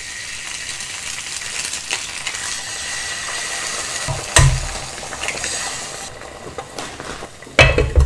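Eggs sizzling as they are cracked into hot ghee in a frying pan, the hiss fading after about six seconds. A sharp knock comes about four seconds in, and a glass pan lid clatters onto the pan near the end.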